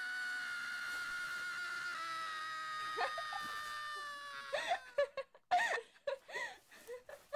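A long high wail with overtones, held for about four and a half seconds and slowly falling in pitch, then a run of short squeaky high-pitched voice sounds like snickering.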